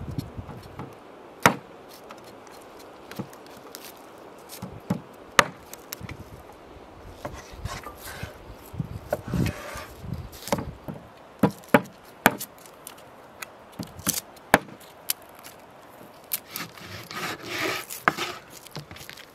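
A large kitchen knife chopping veal on a wooden cutting board: irregular sharp knocks of the blade striking the board, with stretches of scraping and rubbing between.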